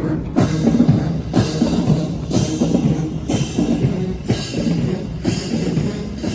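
Marching band playing, brass and drumline together, with loud crashes about once a second over the low horn parts.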